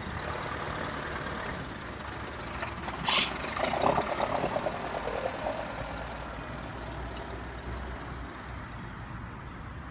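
A heavy vehicle engine runs steadily, most likely a sound effect laid over a toy tractor at work. About three seconds in there is a short, sharp burst of hiss, and a brief busier stretch follows.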